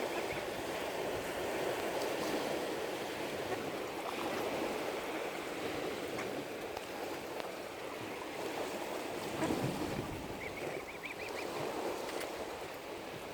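Small waves lapping steadily at the lake shore, with a short series of high peeps about ten seconds in.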